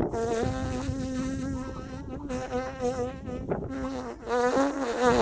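A person imitating a buzzing bee with the voice: a steady, pitched droning hum, broken off briefly twice and wavering in pitch near the end.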